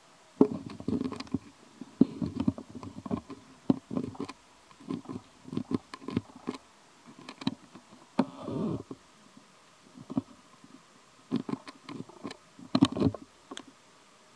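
Crinkling and crackling of a plastic bag handled by hands scooping steamed rice out of it, in irregular bursts of short crackles.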